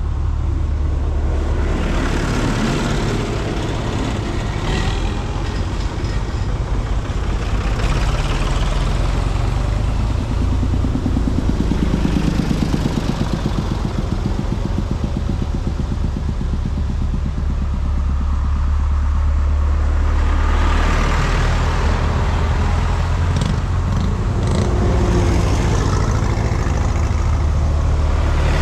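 Tractor engines running as tractors drive past one after another, the engine note swelling as each one passes, once about halfway through and again near the end.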